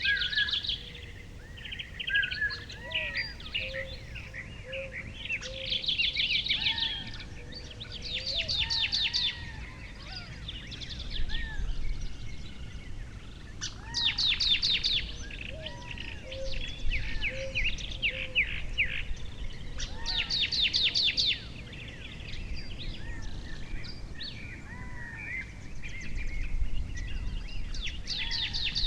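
Several songbirds singing and calling: rapid high trills of about a second recur every few seconds, mixed with shorter, lower whistled notes, over a steady low rumble.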